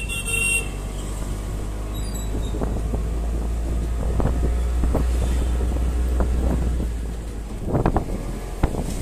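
Road noise from inside a moving vehicle: a steady low engine and tyre rumble with wind on the microphone and scattered rattles and knocks. A truck passes close alongside near the end, bringing a louder burst of knocks and rumble.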